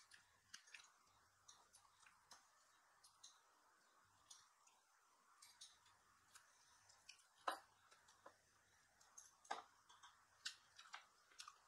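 Near silence with faint, scattered clicks and crunches of people eating fried chicken. The loudest click comes about seven and a half seconds in.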